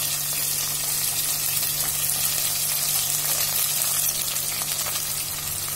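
Diced vegetables (potato, carrot, beans and shallots) sizzling steadily in hot oil in an aluminium pressure cooker.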